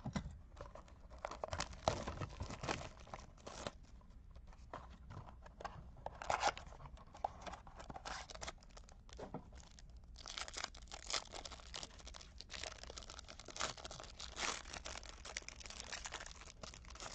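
A trading-card pack wrapper being torn open and crinkled by hand, in irregular crackling bursts that get busiest in the second half.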